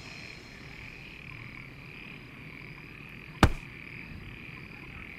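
Low, steady night ambience of chirring frogs and insects, with one sharp click about three and a half seconds in.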